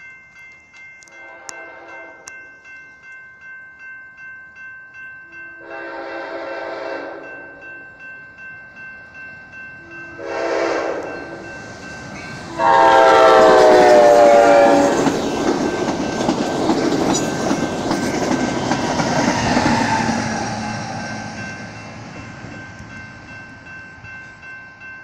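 An Amtrak Cascades Talgo train's locomotive sounds its horn in the grade-crossing pattern: two long blasts, a short one, then a long, loud one that drops in pitch as the locomotive passes. The train then rolls by, its wheels on the rails rising to a loud rumble and fading away. All the while a crossing bell dings at about two strokes a second.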